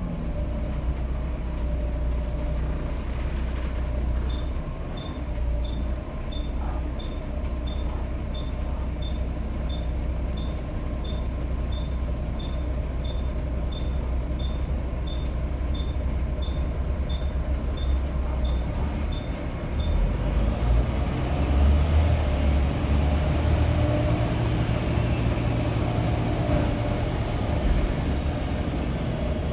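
Volvo B7TL double-decker bus's turbo diesel engine running under load with a steady low drone. About twenty seconds in it pulls harder and the turbo whistles, rising in pitch and then slowly falling away. Before that, a row of short high beeps, about three every two seconds, sounds for some fifteen seconds.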